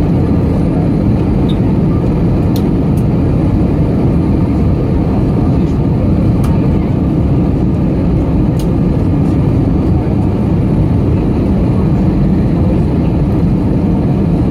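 Steady cabin roar of an Embraer E195 on final approach, heard from inside the cabin over the wing: its GE CF34 turbofan engines and the rushing airflow, a deep, even noise.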